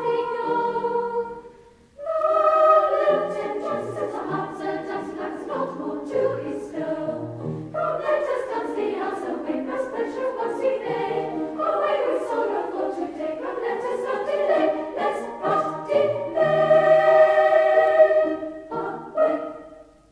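A choir singing a slow hymn-like piece, with a short break between phrases about two seconds in, then fading out at the very end.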